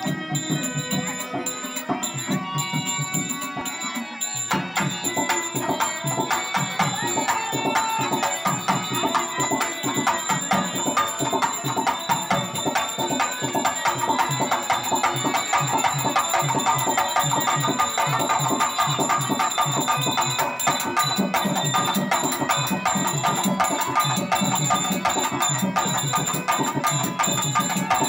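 Harmonium playing sustained melody over hand-drum percussion in a steady rhythm; the drumming fills out about four seconds in.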